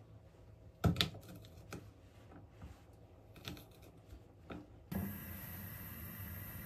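Kitchen knife slicing garlic cloves on a wooden cutting board: a handful of sharp knocks of the blade on the board, the loudest two about a second in. Near the end a steady hiss from the oiled frying pan starts.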